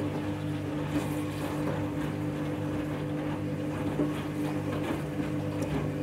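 Front-loading washing machine's motor humming steadily as the drum turns a tangled, very out-of-balance load, with a few short knocks.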